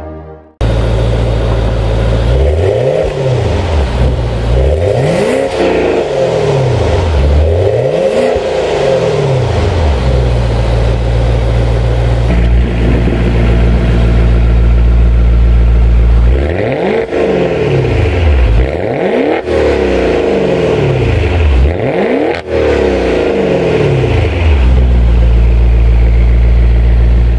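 2021 Maserati Ghibli Trofeo's Ferrari-built 3.8-litre twin-turbo V8, heard at its quad exhaust tips, idling and blipped in two sets of quick revs that rise and fall, with steady idle between them.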